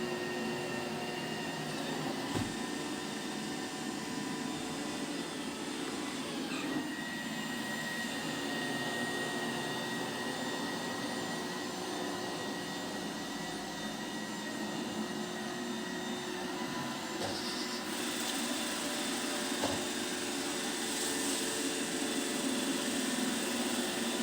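An iRobot Roomba robot vacuum running a cleaning pass: a steady whirring motor and brush hum with a few faint knocks. Its sound gets brighter and a little louder about three-quarters of the way through.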